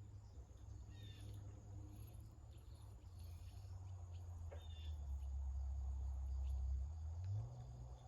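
Steady high-pitched insect drone of crickets, with a few faint short chirps and a low rumble that swells in the middle of the stretch and eases near the end.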